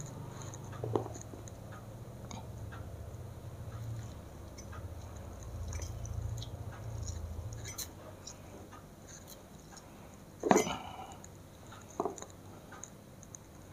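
A few light knocks and clinks of glassware and kitchen utensils being handled, the loudest about ten and a half seconds in and another about a second later, over a low steady hum that stops about eight seconds in.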